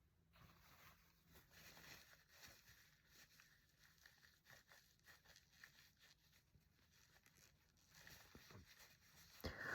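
Near silence: faint room hiss with small scattered rustles and clicks, then one short, sharp sound near the end.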